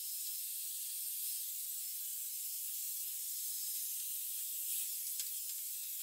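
Hot-air styling brush blowing steadily, an even airy hiss, with a couple of faint clicks near the end.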